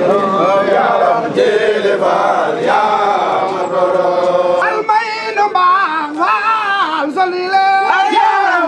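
A group of men chanting together, several voices singing one wavering, ornamented melody in unison.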